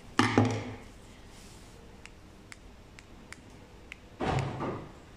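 Two quick plastic snaps as a Toyota key fob's shell halves are pressed back together, followed by faint small ticks of handling. About four seconds in there is a half-second scuffing noise as the key is handled.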